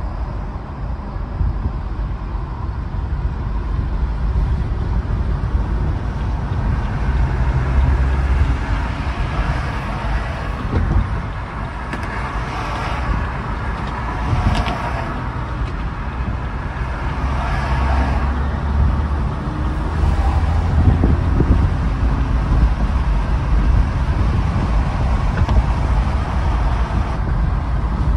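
Car driving at highway speed: a steady low rumble of road and tyre noise, with a rushing hiss that swells a few times around the middle.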